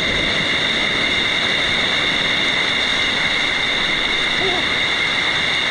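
Waterfall's rushing water, a loud steady roar of falling water with no let-up. A faint voice is heard briefly about four and a half seconds in.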